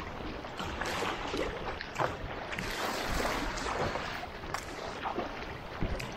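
Double-bladed kayak paddle splashing into choppy water, one stroke about every second and alternating sides, over water rushing along the kayak's hull.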